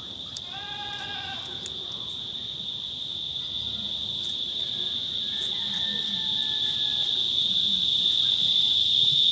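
Steady high-pitched insect buzz that grows louder towards the end, with one short, high animal call about half a second in and a few faint clicks from a knife cutting vegetables over a bowl.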